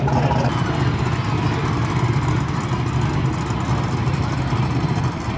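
Drag race car engine running at a steady idle: a low, loud rumble with no revving.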